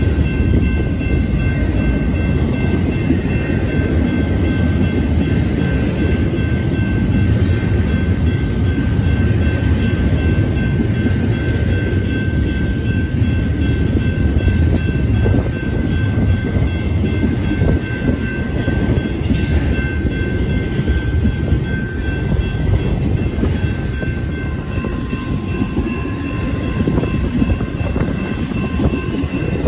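BNSF double-stack intermodal freight train's well cars rolling past: a steady rumble of steel wheels on the rails, with faint steady high tones over it.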